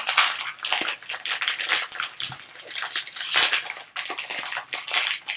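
Foil wrapper of a baseball card pack being torn open and crumpled by hand, a run of irregular crinkling rustles.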